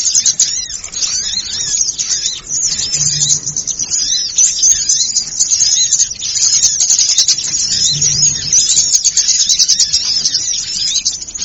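Recorded chorus of many small birds chirping and twittering in rapid, overlapping calls, a frenzied flock sound used as a lure to draw small birds in for trapping. A short low hum comes in about three seconds in and again about eight seconds in.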